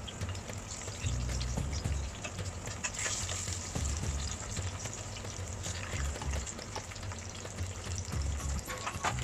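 Zucchini and eggplant slices sizzling steadily as they shallow-fry in hot oil in a pan, with a few clicks of metal tongs against the pan as the slices are turned.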